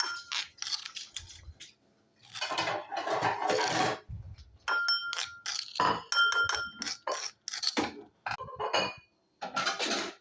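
A spoon scraping and clinking against a mortar and a bowl as ground kencur (aromatic ginger) is moved into the bowl. Repeated sharp clinks ring briefly, with a longer scrape a few seconds in.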